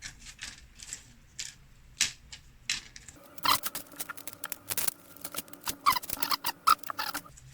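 Small electronic kit parts being handled by hand: scattered light clicks, then from about three seconds in a denser run of clicks and rattles that stops just before the end.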